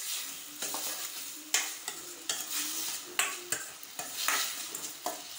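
A steel spatula scraping and stirring chopped tomatoes and small onions frying in oil in a metal kadai: a steady sizzle under irregular scrapes of the spatula on the pan. The tomatoes are being sautéed soft.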